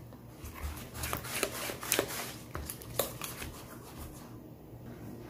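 Silicone spatula stirring a wet egg-and-butter mixture in a plastic mixing bowl: soft, irregular scrapes and taps against the sides of the bowl.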